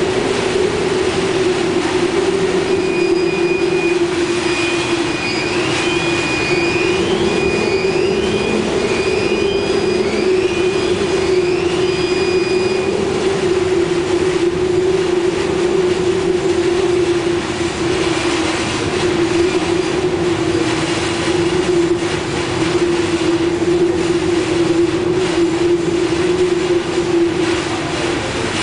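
Hurricane-force wind roaring with heavy rain driven against a window, and a steady low howl that holds roughly one pitch throughout.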